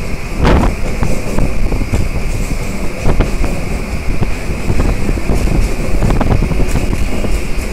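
Moving train heard from inside the carriage: a steady low rumble with irregular rattles and clanks, a steady high whine, and wind buffeting the microphone.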